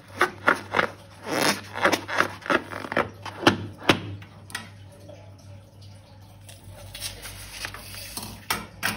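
Long latex balloon rubbing and squeaking under the hands as it is squeezed: a quick run of short squeaks and scrapes over the first four seconds, then fainter rustling.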